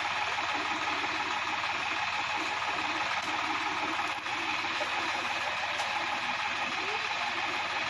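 Sonalika tractor's diesel engine idling steadily.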